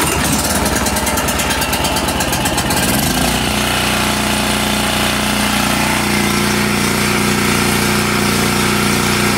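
Champion 3550-watt portable generator's single-cylinder four-stroke engine catching on the first pull with the choke on. It runs choppy and uneven for about three seconds, then settles into a steady run. This is the first run of a brand-new engine.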